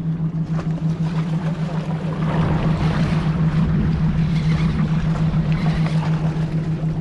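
Steady low hum of a boat engine under wind and water noise, with a hooked speckled trout splashing at the surface as it pulls drag; the wash swells in the middle.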